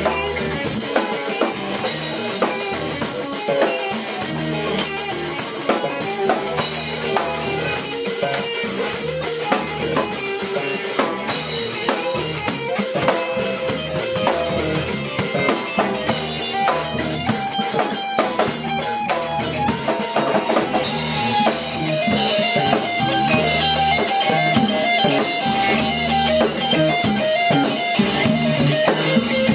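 Live rock band playing: guitar over a drum kit with a steady beat, no vocals heard.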